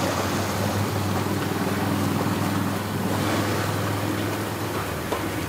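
Boat's outboard motor running steadily under throttle, powering the boat up onto its trailer, easing off slightly near the end.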